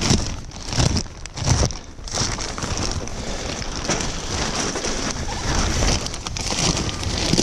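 Black plastic silage sheeting crinkling and rustling as it is gripped and pulled back by hand, with several louder crackling bursts over a steady hiss.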